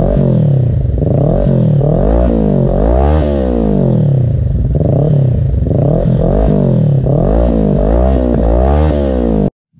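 2020 Kawasaki Ninja 650's parallel-twin engine, breathing through an aftermarket full exhaust system with a carbon tip, being free-revved over and over: the pitch climbs and falls back with each blip of the throttle. The sound cuts off suddenly near the end.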